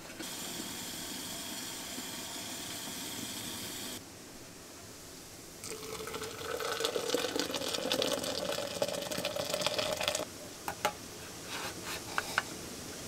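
Hot water hissing in an enamel kettle on a gas burner, then poured from the kettle into a French press for about four seconds, the pitch of the pour rising a little as the jug fills. A few light clicks near the end as the plunger lid is set on the press.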